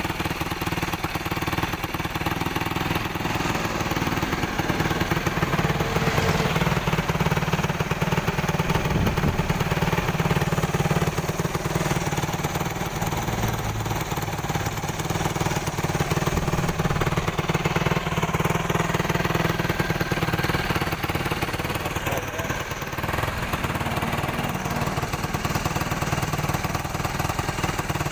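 Yamaha YFZ450R's single-cylinder four-stroke engine running at idle with a rapid, even beat, a little stronger around the middle. The engine has just been brought back to running after a carburettor clogged with debris was cleaned, and now runs fairly well.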